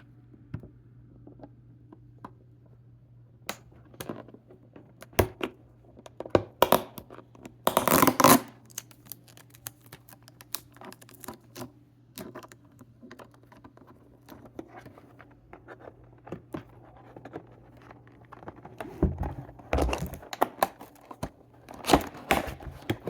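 A Hot Wheels multipack's cardboard and plastic blister packaging being torn open and handled: scattered rips, scratches and clicks, with the longest, loudest tear about eight seconds in and more rustling near the end. A faint steady low hum runs underneath.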